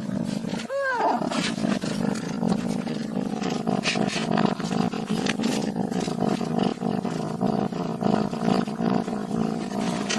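Angry cat growling steadily and roughly, with a short rising-and-falling yowl about a second in.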